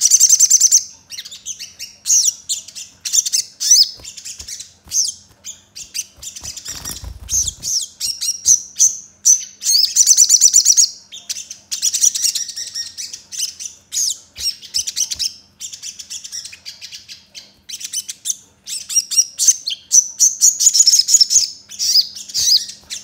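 Caged sunbird (sogon) singing in quick, high-pitched chirping and twittering phrases, bout after bout with short pauses between. A brief low bump sounds about seven seconds in.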